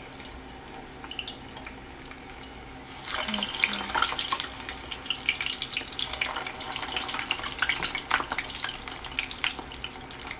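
Hot oil sizzling and crackling hard in a stainless steel pot as wet, salt-water-dipped plantain pieces fry in it. The crackle grows much louder about three seconds in, as more pieces go into the oil.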